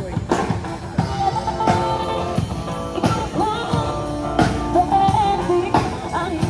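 Street musicians performing a song: a singer's voice over instrumental backing with a steady beat about once a second.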